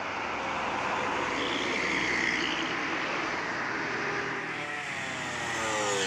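A bus drives past close by, its engine and tyre noise swelling. Near the end the engine's pitch falls as it goes by.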